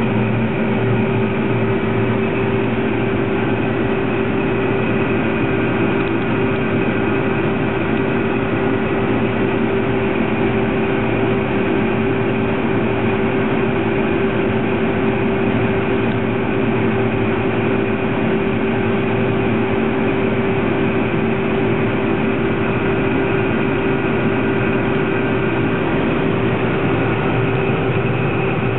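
John Deere 9750 STS combine harvester running steadily while harvesting wheat: a constant machine drone with a strong, unwavering hum.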